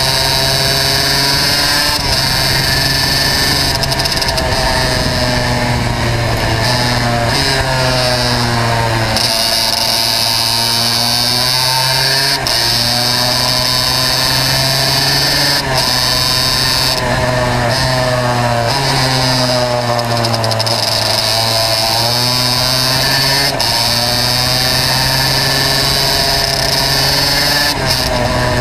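TM two-stroke kart engine at racing revs, heard onboard. Its pitch falls and climbs again several times as the kart slows for corners and accelerates out of them.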